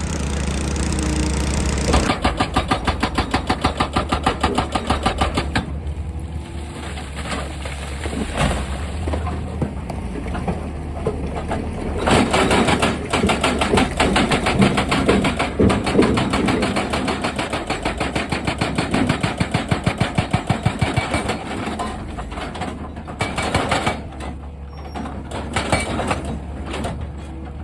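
Excavator working: engine running under load, with a fast, rhythmic knocking that starts about two seconds in and comes and goes in stretches.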